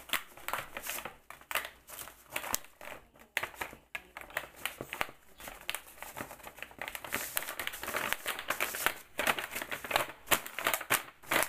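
Paper crinkling and rustling as a manila clasp envelope holding a bag of tea is handled and its flap folded down, in many short, irregular crackles and taps.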